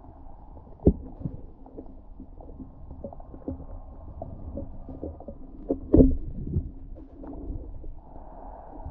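Muffled underwater sound from a camera in the lake, with a low rumble and scattered dull knocks and thumps. The loudest knocks come about a second in and again around six seconds in.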